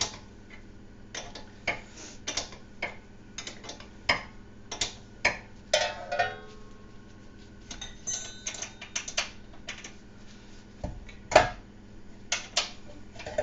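Irregular metallic clicks and clinks of hand tools and steel brake parts being worked and handled, some ringing briefly, with one louder knock near the end.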